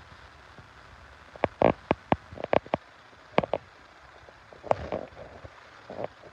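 Water in a plastic basin splashing and sloshing as hands scoop it over and rub a pair of feet: a string of short splashes, several close together in the middle and a few more near the end.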